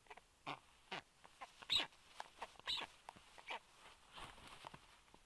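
Young black storks moving on their stick nest: irregular, faint, sharp knocks and scuffs, about a dozen over a few seconds, as they shuffle and flap their wings.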